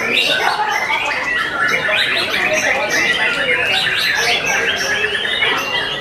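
Caged white-rumped shamas singing together: a dense, continuous tangle of rapid whistles and chirps.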